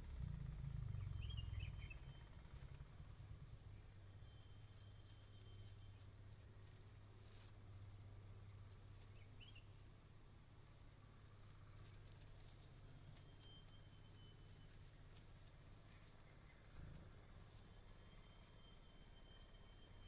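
Faint, high, short bird chirps repeating every second or so, over a low steady hum that is loudest in the first two seconds.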